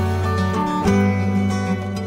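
Background music with plucked string instruments, notes changing about once a second over a held low bass note.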